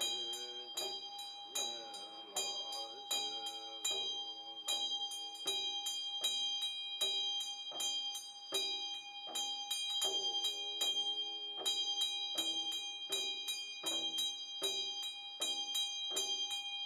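A large chöd damaru (double-headed hand drum) is twirled so its beaters strike in a steady rhythm of about three beats a second, over the sustained ringing of a Tibetan hand bell (drilbu). A man's low chanting voice comes and goes beneath them.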